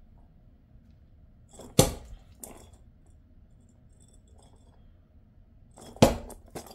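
A tennis ball hitting a hard floor: two loud knocks about four seconds apart, each followed by one or two fainter bounces.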